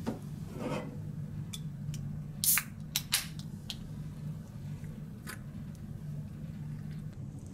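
Sharp clicks and handling of a Coca-Cola aluminium soda can as it is picked up and its pull tab cracked open, the loudest two about two and a half and three seconds in, over a steady low hum.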